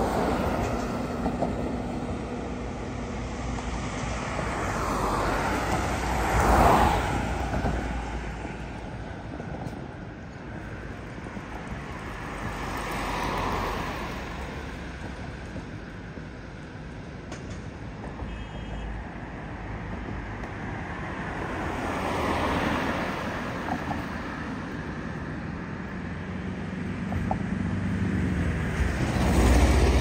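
Road traffic: vehicles passing one after another, each one swelling and fading. The loudest passes come about six seconds in and near the end.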